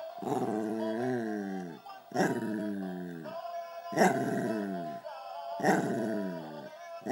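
Small scruffy dog growling and howling at a plush toy in long drawn-out calls, four in a row, each starting sharply and sliding down in pitch.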